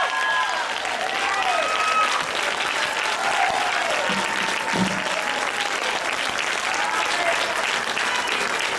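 Congregation applauding steadily, with scattered voices calling out over the clapping.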